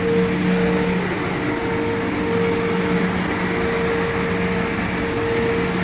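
A vehicle engine running steadily with a constant hum and a steady mid-pitched tone.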